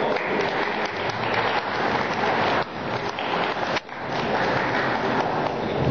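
Audience applauding, a dense patter of clapping, which dips briefly twice, near the middle.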